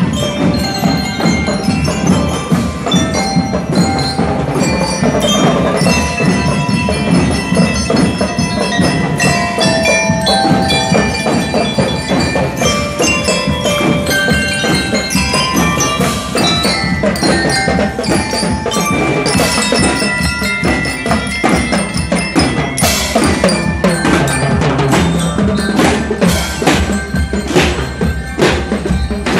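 Drum and lyre marching band playing a tune: mallet-struck metal bars carry a ringing melody over bass drum beats.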